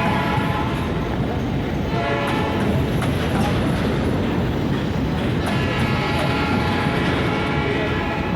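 Train passing with a steady rumble. Its horn sounds in blasts: briefly at the start, again about two seconds in, and a longer blast near the end.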